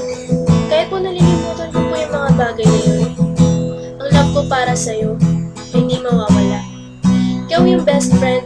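Acoustic guitar strumming chords, with a higher melody line above it that glides and wavers in pitch.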